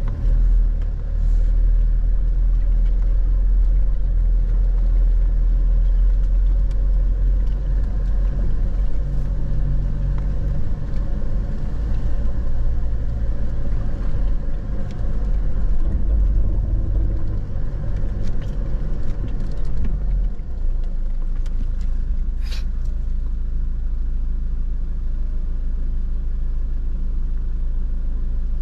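A vehicle driving, with a steady low engine and road rumble, and one short click about two-thirds of the way in.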